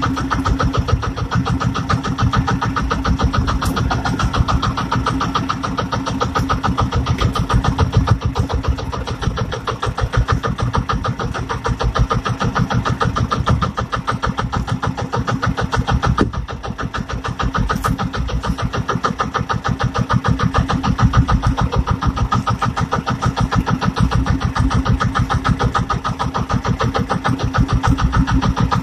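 Small inboard engine of an outrigger fishing boat running steadily, with fast, even firing pulses.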